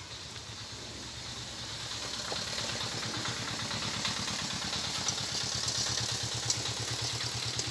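Strips of flour dough sizzling in moderately hot oil in an iron karahi. The frying hiss grows over the first couple of seconds. A low, steady engine throb runs underneath.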